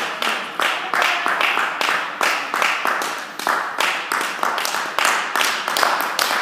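Steady rhythmic hand clapping, about three claps a second, echoing in a large hall.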